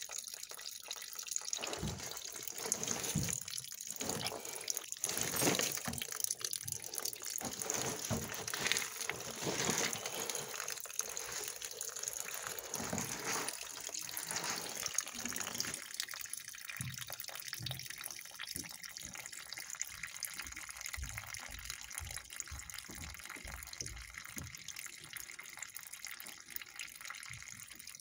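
Water running and splashing out of a cast iron sewer pipe onto the dirt as it is being cut, with scattered dull knocks from the Ridgid chain soil pipe cutter clamped on it being worked.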